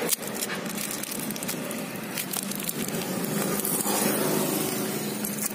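Clear plastic shrink-wrap crinkling and crackling as it is peeled off the cap of a motor-oil bottle, over a steady low hum.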